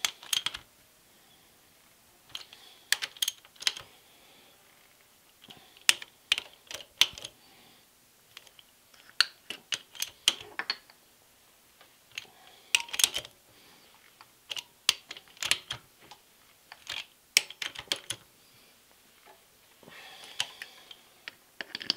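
Socket ratchet wrench clicking in short runs of sharp clicks, a few seconds apart, as the milling machine head's clamping bolts are tightened after tramming it to zero.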